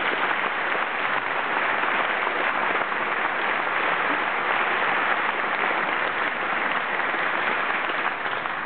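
Audience applauding, a dense steady clapping that begins to ease off near the end.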